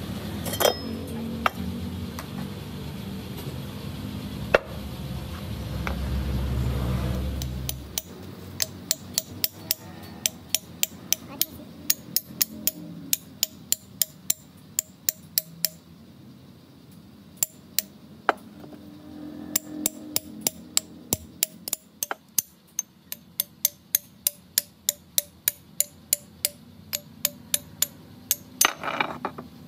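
Hand hammer striking the steel ram and collar of a 32-ton hydraulic jack: a steady run of sharp metal taps, about two a second, with a brief pause about halfway. A low rumble and a few single knocks come before the tapping starts.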